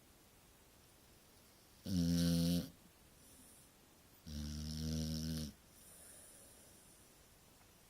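A sleeping Staffordshire terrier snoring: two loud snores, the first about two seconds in and the second a little longer, each followed by a softer breath.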